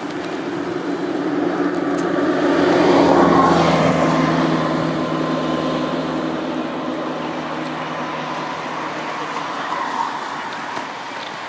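A motor engine passing by: a steady hum that swells to its loudest about three seconds in, then slowly fades away.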